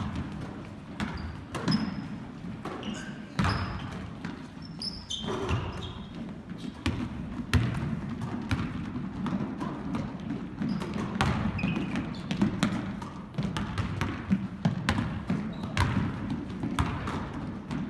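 Basketballs bouncing on a hardwood gym floor, with running footsteps and a few short, high sneaker squeaks, the thumps echoing in the large gym.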